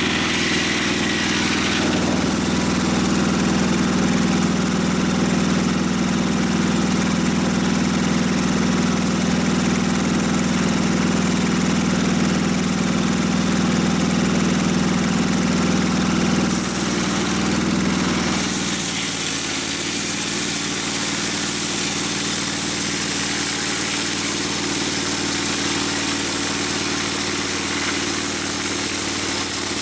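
Mobile Dimension sawmill's engine running steadily. About two-thirds of the way through the sound changes: a low steady hum drops away and the hiss shifts.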